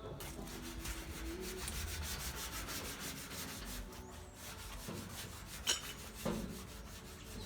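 Hand sanding of truck bodywork in quick back-and-forth strokes, abrasive rubbing on the panel during prep for primer. Two sharp ticks about six seconds in.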